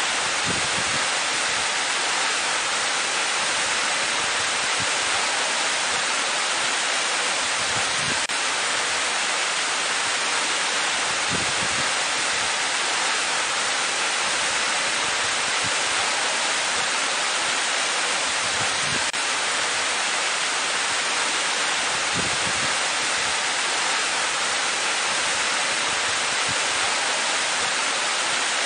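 Waterfall falling into a pool: a steady, unbroken rush of water, more hiss than rumble.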